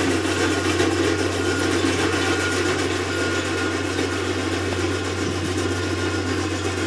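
Skid steer's diesel engine running steadily under load as it drives a Rockhound landscape rake across the soil, an even unbroken drone with a low hum beneath.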